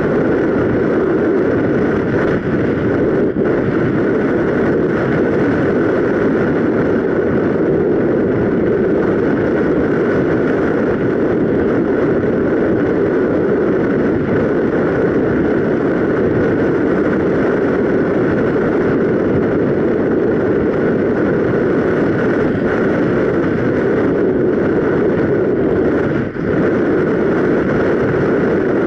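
Loud, steady rush of airflow over an action camera mounted on a ParkZone Radian Pro RC glider in flight.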